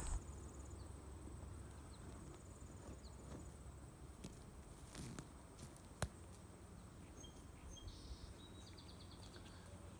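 Faint garden ambience with a steady high insect trill, scattered soft knocks and one sharp click about six seconds in. A few short, rapid chirps come near the end.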